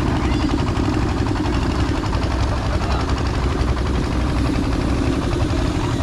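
An engine running steadily close by, with a fast, even chugging beat and a heavy low rumble.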